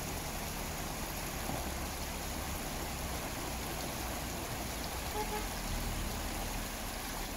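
Steady rushing of shallow, muddy floodwater flowing over a gravel riverbed.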